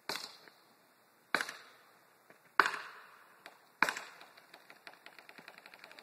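Four hard blows struck at the base of a tall conifer being felled, about a second and a quarter apart, each ringing off briefly. In the last two seconds they give way to a quickening run of small cracks as the trunk's wood starts to give.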